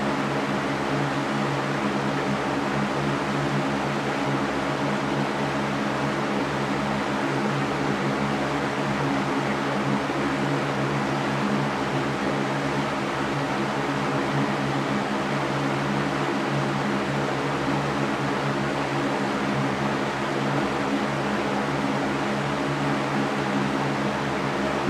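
Electric fan running steadily: an even rush of moving air over a constant motor hum.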